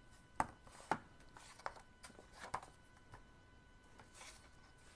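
Hands handling a hardback children's picture book: a few faint taps and clicks of the cover and pages, then a soft rustle as a page is turned near the end.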